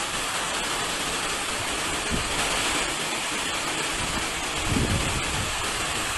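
Steady rushing hiss of floodwater pouring over a ledge and heavy rain, with brief low rumbles about two and five seconds in.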